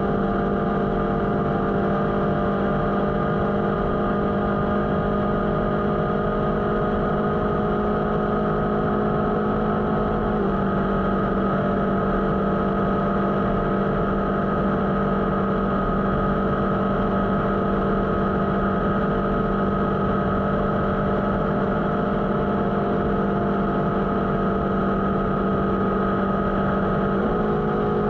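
Motorcycle engine running at a steady cruising speed with a low rush of noise underneath. The engine note drops a little about a third of the way in and rises again near the end.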